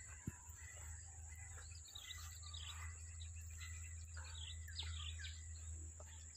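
Birds chirping in short falling calls again and again over a steady high-pitched insect drone, with a low rumble underneath and a single click shortly after the start.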